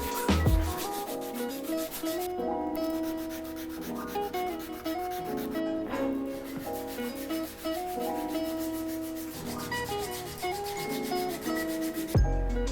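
Hand sanding of a wooden knife handle with sandpaper, a steady rubbing, under background music with a stepped melody.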